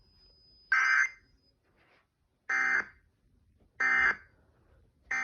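Emergency Alert System end-of-message data bursts: three short, harsh buzzy bursts of digital SAME code tones about a second and a half apart, with a fourth starting at the very end, signalling the close of the Amber Alert broadcast.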